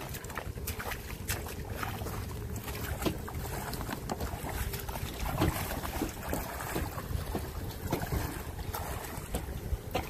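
A person wading through shallow sea water, legs splashing irregularly, over a steady rumble of wind on the microphone.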